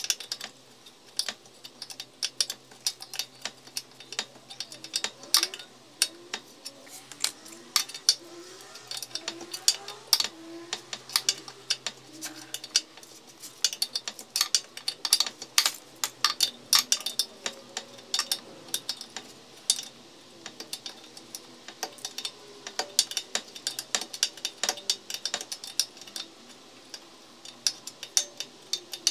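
A wrench clicking and clinking on a control-arm ball-joint nut as it is being undone: irregular sharp metallic clicks, several a second.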